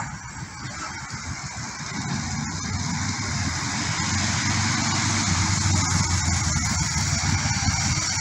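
Kawasaki ER-5's parallel-twin engine running as the motorcycle rides toward the listener, growing louder over the first few seconds and then holding steady, over a constant hiss.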